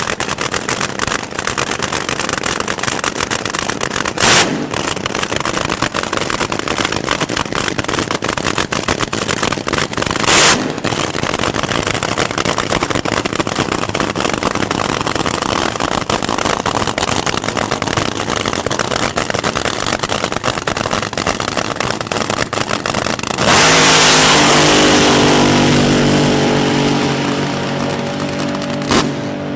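Two nitromethane-burning Top Fuel dragsters with supercharged V8s idle with a loud, crackling, uneven exhaust, with two brief louder blasts at about 4 and 10 seconds. About 23 seconds in they launch at full throttle in a sudden loud blast, then fade as they run away down the track.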